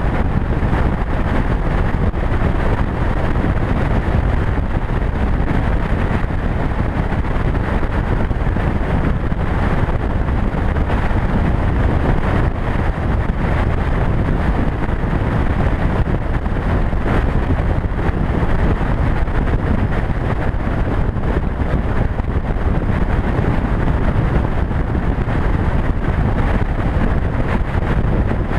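Steady rush of wind buffeting the microphone on a motorcycle cruising at highway speed, mixed with engine and road noise, unchanging throughout.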